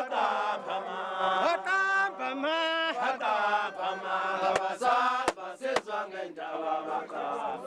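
Men's voices chanting in long, held sung lines, with a few sharp clicks about halfway through and later.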